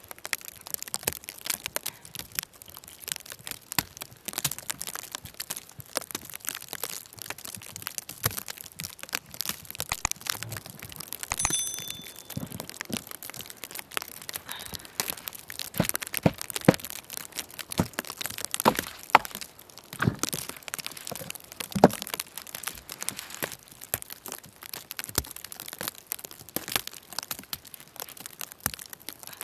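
Fresh snow crunching under footsteps and hands, with dry wood cracking, as snow-covered branches are dug out and gathered for firewood: a steady run of irregular crisp crunches and cracks.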